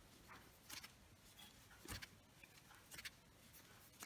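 Near silence with a few faint, scattered ticks and rustles of a crochet hook working yarn into single crochet stitches.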